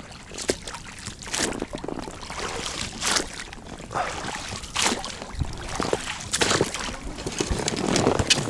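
A small inflatable boat working through a river logjam: irregular knocks and scrapes of branches against the boat, with water sloshing and splashing.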